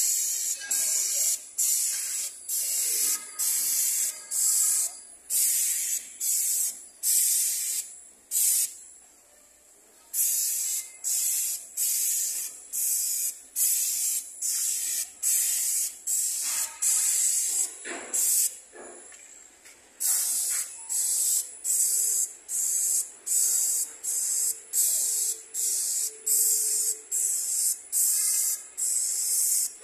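Airless paint spray gun spraying epoxy paint in repeated short hissing bursts, a little over one a second, one burst per trigger pull, with a couple of brief pauses between runs of strokes.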